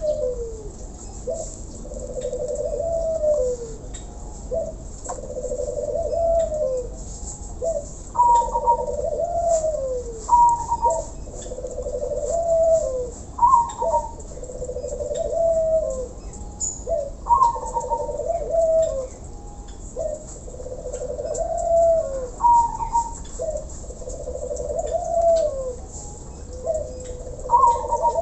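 Caged doves cooing over and over: a low rolling coo ending in a falling note, about every two to three seconds. From about eight seconds in, a shorter, higher call joins every few seconds.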